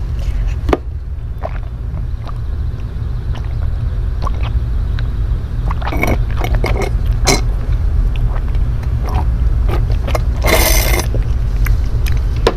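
Sipping a milky drink through a plastic straw, with small wet clicks of swallowing and a louder, noisy slurp through the straw about ten and a half seconds in.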